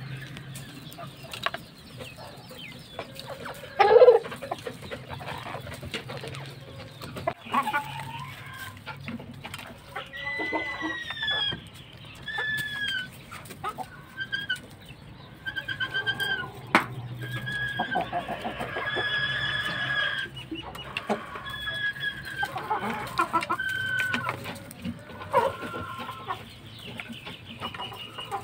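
Chickens clucking and calling as they feed, with one louder squawk about four seconds in and a run of short repeated calls through the middle. A few sharp taps come from beaks striking the steel feeding plate.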